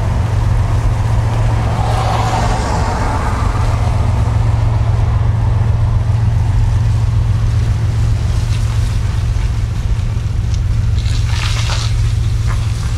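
A steady low rumble that does not change, with a brief rustling hiss about eleven seconds in.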